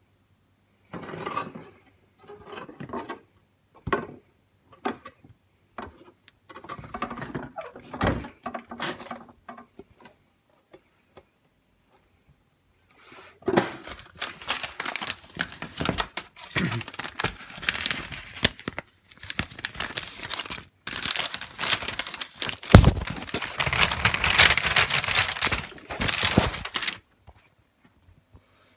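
Packaging handled during an air-mattress unboxing: scattered knocks and short rustles of cardboard and paper at first, then, after a short pause, a long stretch of dense crinkling and rustling of paper and plastic as the contents are unpacked and the instruction leaflet is unfolded.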